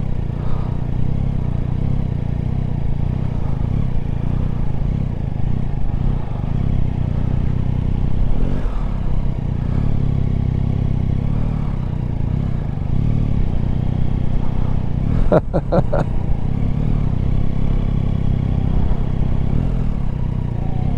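Yamaha Tracer 9 GT's 890 cc inline three-cylinder engine running steadily at low speed in a slow crawl. A short, sharp sound cuts in briefly about fifteen seconds in.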